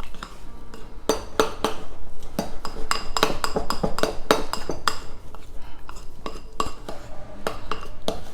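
A utensil stirring thick cake batter in a mixing bowl, knocking and clinking against the sides over and over in an uneven rhythm. Several of the knocks leave the bowl briefly ringing.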